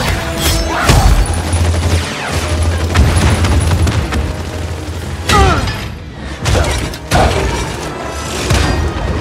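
Battle sound effects under film music: explosions and hits, with a deep rumble through the first few seconds and sharp impacts about five and seven seconds in.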